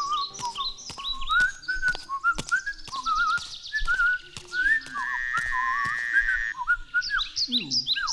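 Someone whistling a warbling tune with trills, over a series of sharp clicks, with a held note in the middle and a falling glide near the end.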